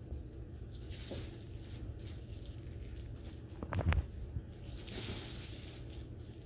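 Morkie puppy chewing and tugging at a plush rope toy: soft rustles of fabric and mouthing, with one louder short chomp just before four seconds in, over a low steady hum.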